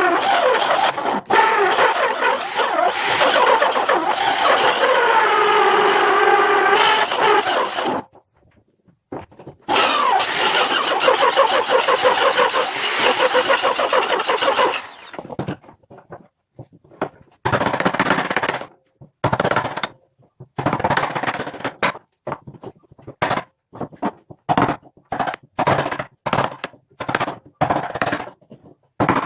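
A power tool cutting into a pine block, its motor pitch sagging and recovering under load. It stops about eight seconds in and runs again for about five seconds, then gives way to a series of short rasping strokes, about one a second.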